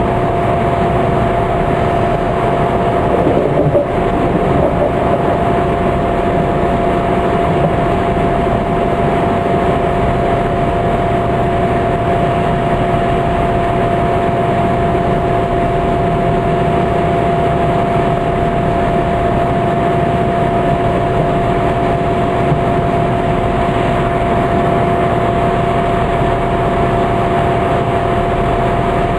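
Interior running noise of a Class 165 diesel multiple unit in motion: a steady rumble with a constant whine held at one pitch.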